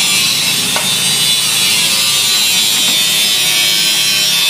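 Automatic latex glove production machine running: its electric gear motors and roller-chain conveyor make a steady mechanical hiss over a low hum, with a small click about a second in.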